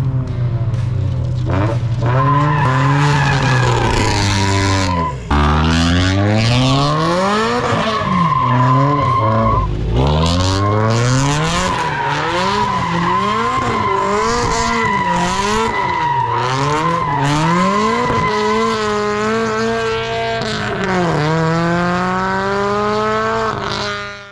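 HKS-turbocharged Toyota 86's flat-four engine revving up and down over and over while doing donuts, over a steady high tyre squeal. The revs drop off briefly about five and ten seconds in.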